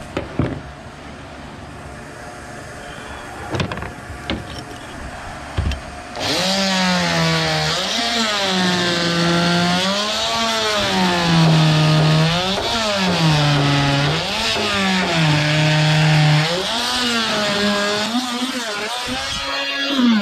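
A few knocks, then about six seconds in a small cordless power tool starts and runs continuously as it is worked into the rotted wood core of a fibreglass deck, its pitch sagging and recovering over and over as the load changes.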